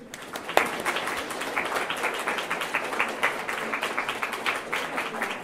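Audience applauding: many hands clapping together, starting suddenly, with one sharp clap standing out about half a second in.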